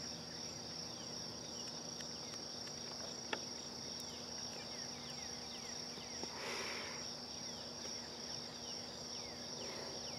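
Evening insect chorus, a steady high-pitched trill. A single click comes a little over three seconds in, and a soft breathy exhale of smoke about six and a half seconds in.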